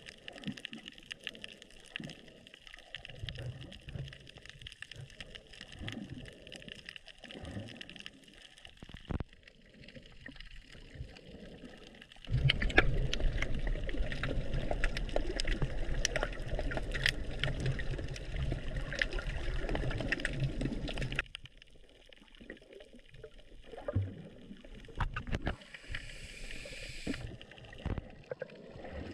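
Water gurgling and sloshing around a snorkeller's camera, with scattered faint clicks. About 12 seconds in, a much louder, rougher water noise starts abruptly and runs for about nine seconds before cutting off.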